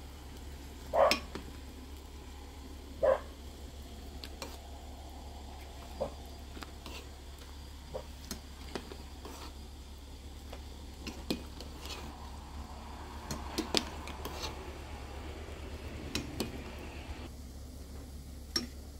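Metal ladle clinking and knocking against a steel cooking pot while boiled dough dumplings are scooped out of hot water and tipped into a plastic colander. There are two loud knocks about one and three seconds in, then lighter clinks and taps, with water dripping and sloshing.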